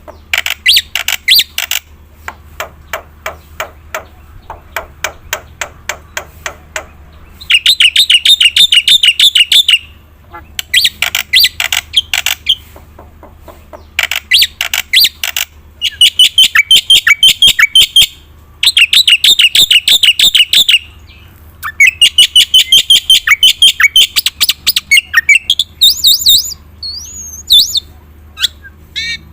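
Black-winged myna (jalak putih) singing vigorously: long runs of rapid chattering notes, with a few whistled glides near the end. A faint steady low hum runs underneath.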